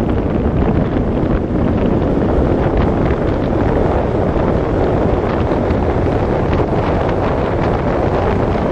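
Steady wind rushing over the microphone of a bicycle-mounted camera during a fast downhill run at about 64 km/h.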